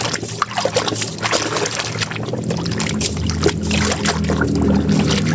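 Water trickling and splashing as a muddy toy is rinsed clean.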